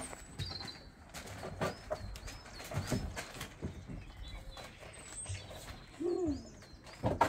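Small birds chirping in short, repeated high notes, over knocks and thumps from children climbing a wooden play frame, with a sharp knock just before the end. A short low call comes about six seconds in.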